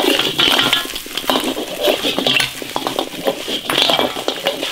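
Metal spatula scraping and clanking against a large iron wok as a heap of beef ribs and potatoes is stir-fried, in repeated strokes over a steady sizzle.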